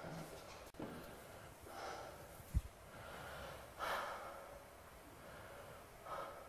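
Faint room noise with a few soft, breath-like puffs and one brief low thump about two and a half seconds in.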